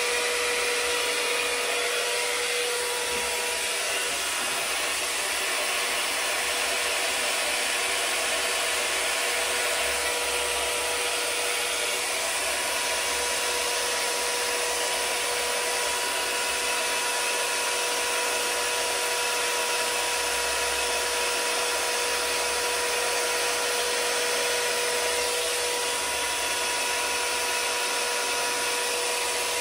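Handheld hairdryer running steadily: a constant rush of air with a steady motor whine, blowing wet fluid acrylic paint across the canvas.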